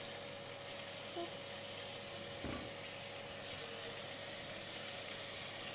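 Chopped garlic frying in butter and olive oil in a stainless steel pot, a steady sizzle as cooked shrimp are added and stirred with a spatula. A single soft knock comes about halfway through.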